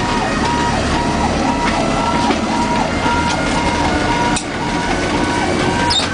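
Fire apparatus electronic siren heard from inside a fire truck's cab, cycling quickly up and down in pitch about twice a second, over the steady rumble of the engine and road.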